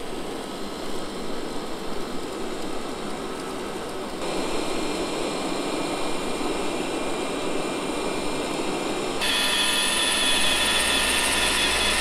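Deenkee robot vacuum running on carpet, a steady motor and brush hum in auto mode, stepping up louder and hissier when it switches to max suction about four seconds in. About nine seconds in, an iRobot Roomba 690 takes over, louder again with a high whine.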